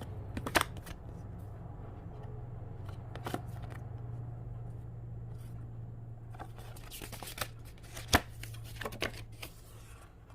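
Paper rustling and a few sharp clicks as a paper instruction leaflet is handled, over a steady low hum. The rustling is busiest in the second half.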